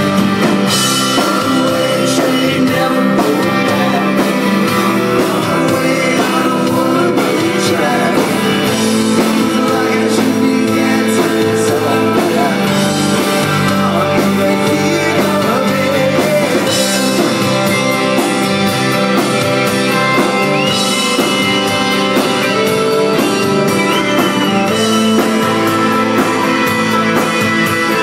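Live rock band playing: strummed acoustic guitar, electric guitar and drum kit, with a man singing lead, loud and continuous.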